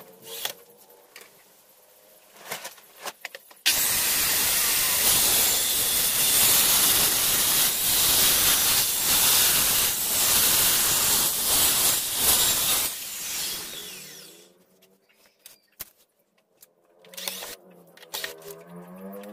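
Handheld circular saw switched on about four seconds in and ripping a long wooden board lengthwise, running loud and steady for about nine seconds, then switched off and winding down. A few light clicks and knocks before and after the cut.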